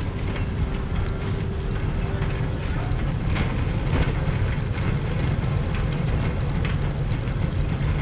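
Wire shopping trolley rolling over a tiled supermarket floor: a steady low rumble from the wheels, with light rattles and clicks from the wire basket.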